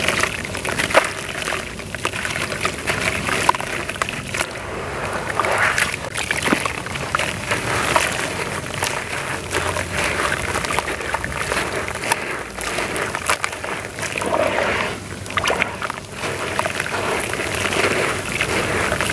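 Lumps of wet sand-and-cement paste crushed by hand in a plastic tub of muddy water. Gritty crumbling with many small crackles, and sloshing and splashing as the pieces drop into the water.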